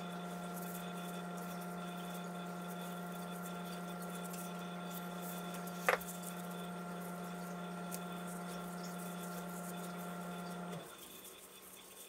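Steady low electrical hum with a few fainter higher tones, cutting off suddenly near the end. A single short click comes near the middle.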